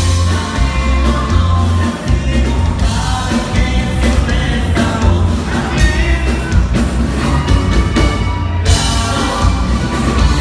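Live band playing: a man singing over a heavy electric bass line and drums.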